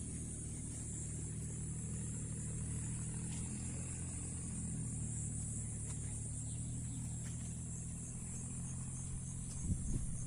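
A steady low engine hum runs throughout, under a continuous high-pitched chorus of insects. A few knocks come near the end.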